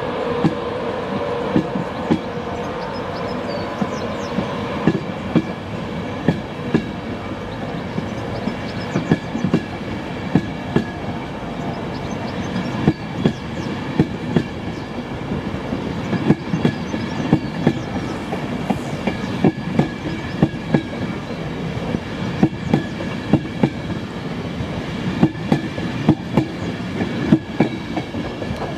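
InterCity 225 Mark 4 coaches rolling past as the train pulls out of the station: a steady rumble with repeated sharp click-clacks of wheels over rail joints, and a faint high whine. Near the end the Driving Van Trailer at the rear passes.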